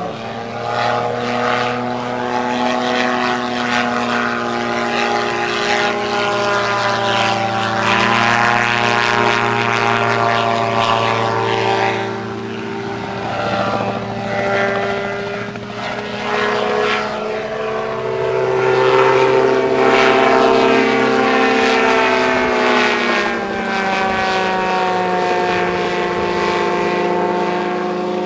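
120 hp Yamaha snowmobile engine and propeller of a gyroplane in flight, a steady drone whose pitch rises and falls several times as it manoeuvres, loudest about two-thirds of the way through.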